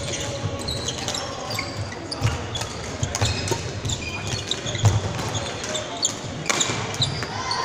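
Badminton rally: rackets striking the shuttlecock in sharp cracks, and sports shoes squeaking briefly on the hall floor, over the echoing background chatter and play of other courts in a large sports hall.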